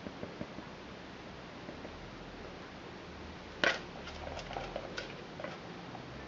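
Light handling noises of a spatula working soap batter out of a plastic mixing bowl: scattered soft clicks and scrapes, with one sharper knock about three and a half seconds in.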